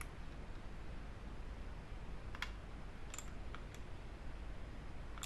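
Several sharp clicks of a computer mouse, scattered through the latter half, over a faint low hum.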